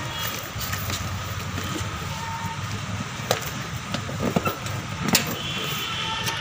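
Street traffic noise: vehicle engines running as a steady low rumble, with a couple of sharp clicks and a brief high tone near the end.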